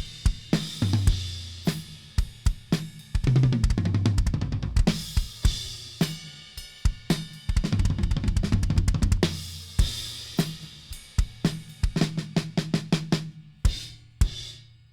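A 1972 Ludwig Vistalite acrylic drum kit playing a groove of kick, snare, hi-hat and cymbals on Attack drumheads that have been on the kit since 2008. Tom fills ring low about a second in, at about three and a half seconds, and around eight seconds. The playing thins out and stops near the end.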